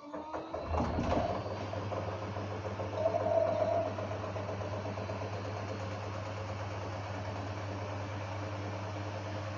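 LG WD-1054FB front-loading washing machine mid-cycle: a clatter about a second in, then a steady low electrical hum with an even rush of water.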